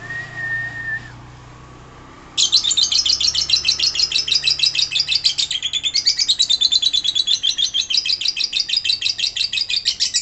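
Female lovebird giving a short whistle, then, from about two seconds in, its long, very rapid chattering trill (the "ngekek"), unbroken apart from one brief pause.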